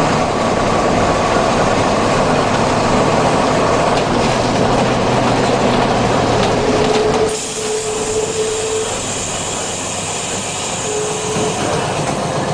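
Mercedes-Benz OF-1315 bus's OM-366 six-cylinder diesel engine running loudly. About seven seconds in the sound changes abruptly: it drops somewhat quieter and a high hiss comes in.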